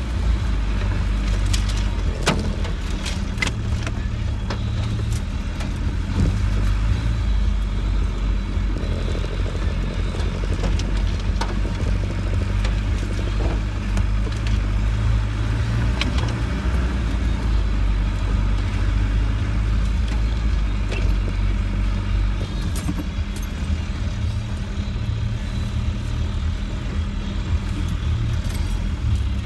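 Land Rover 90's engine running steadily at low speed, heard from inside the cab while it crawls along a rutted mud lane, with scattered clicks and rattles over it.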